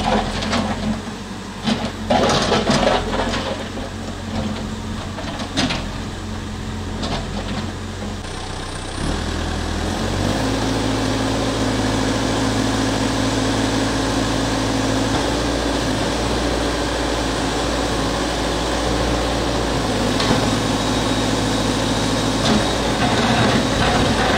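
Diesel engine of a Caterpillar 428C backhoe loader idling steadily. In the first nine seconds or so, sharp knocks and clatter from the road work sound over it.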